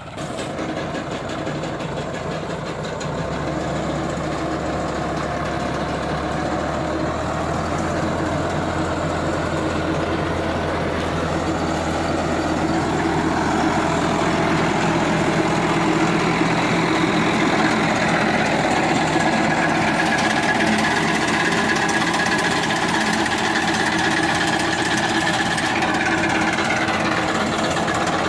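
Massey Ferguson 375 tractor's diesel engine running steadily under load while its side-mounted fodder cutter cuts through standing sorghum, growing louder over the first half as it comes closer.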